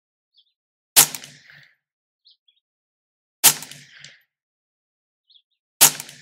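Three single shots from a Faxon FX22 semi-automatic .22 LR rifle firing CCI standard-velocity 40-grain lead round-nose ammunition, evenly spaced about two and a half seconds apart. Each shot is a sharp crack that trails off over about half a second.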